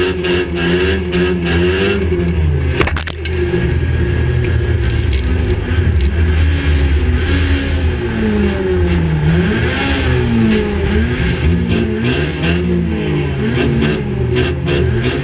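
Banger racing car's engine heard from inside the stripped cabin, revving up and down with the throttle. Several knocks come in the first couple of seconds, with a sharp one about three seconds in.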